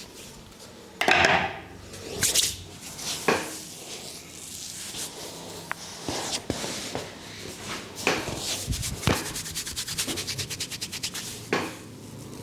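Hands massaging a head: rubbing and scratching swishes through the hair, then a fast run of light tapping strokes, about ten a second for a few seconds near the end.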